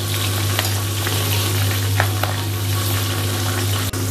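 Hyacinth bean (avarekai) pod peels deep-frying in hot oil, sizzling steadily with a few sharp crackles, as a wire skimmer stirs them in the kadai. A steady low hum runs underneath.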